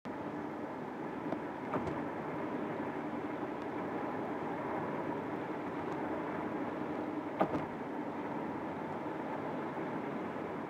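Steady road and engine noise heard inside a moving car's cabin at highway speed, with a few brief clicks, the sharpest about seven and a half seconds in.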